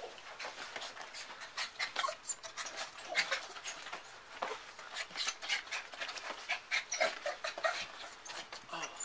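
Miniature pinscher puppy panting fast and unevenly, in quick breathy strokes.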